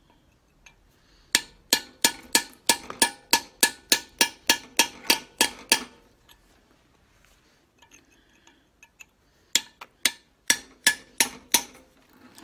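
Hand hammer striking a cold chisel against a bolt in a steel lorry front hub and brake drum, breaking out what is left of a seized hub-to-drum bolt. Ringing metal blows, about four a second, in a long run of some twenty strikes, then a pause and a shorter run of about eight near the end.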